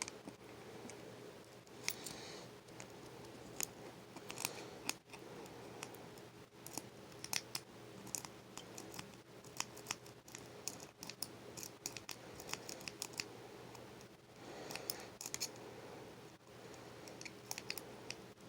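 Lock pick and tension wrench working inside a HyperTuff laminated steel padlock: light metallic clicks and scrapes at an irregular pace, some in quick clusters.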